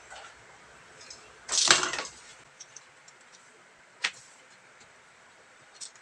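Hand tools being handled on a cardboard template on a board: a brief scraping rustle about a second and a half in, a sharp click about 4 s in, and a lighter click near the end, as a metal square and a utility knife are set in place.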